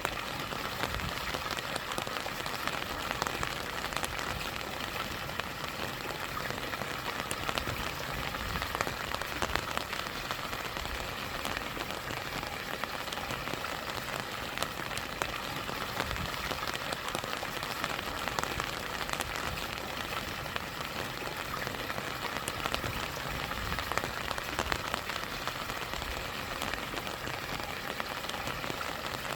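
Steady rain falling, with many small drop ticks, over the rush of stream water and a small waterfall.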